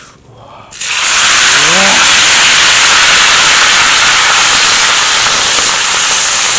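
Ant eggs dropped into hot oil in a pan over a wood fire, setting off a loud, steady sizzle that starts suddenly a little under a second in and keeps going as they are stirred.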